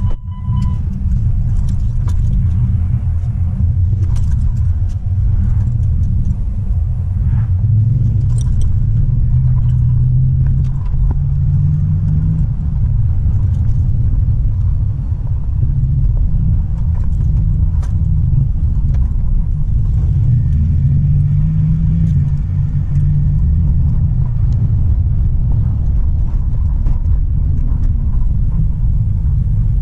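Dodge Ram pickup driving, heard from inside the cab: a steady low engine and road rumble. The engine note rises as the truck speeds up, about twelve seconds in and again about twenty seconds in.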